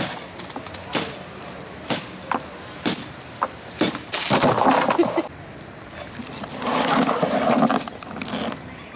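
A run of sharp knocks, about one or two a second, followed by two longer noisy scraping bursts of about a second each.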